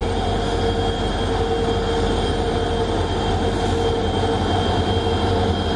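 Twin WDG3A diesel-electric locomotives with ALCO 16-cylinder engines running steadily as they draw the train slowly in. The sound is a loud, even low throb with a steady hum over it.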